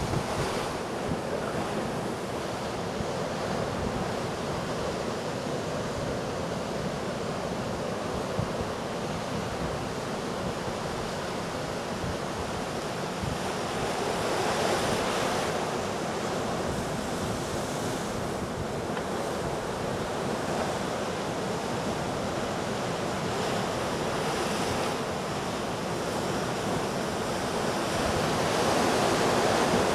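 Heavy hurricane surf breaking continuously, a steady wash of crashing whitewater that swells louder about halfway through and again near the end. Wind rumbles on the microphone throughout.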